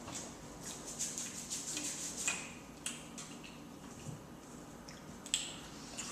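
Close-up eating sounds: soft clicks and wet smacks of chewing pizza, a quick run of them for about two seconds, then a few scattered clicks.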